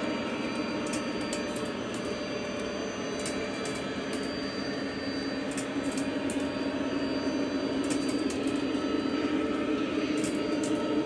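Lionel O-gauge three-rail freight train running past, led by a Conrail SD70MAC diesel with an onboard sound system: a steady rumble of wheels on the track mixed with the locomotive's diesel engine sound, with light clicks now and then.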